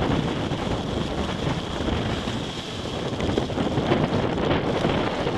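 Strong wind buffeting the microphone: a steady rushing noise that swells and eases a little in gusts.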